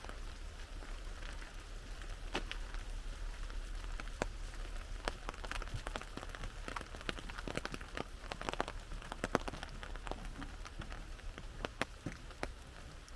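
Rain pattering on an umbrella: a steady hiss of rain with many separate heavy drops tapping irregularly on the canopy.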